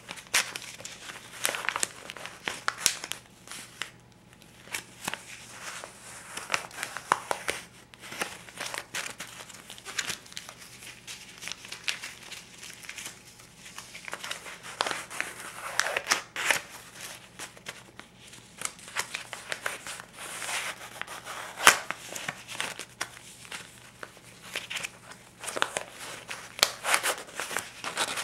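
A stack of US paper banknotes, $50s and $20s, being handled and flipped through. It crinkles and rustles in irregular crisp snaps and swishes.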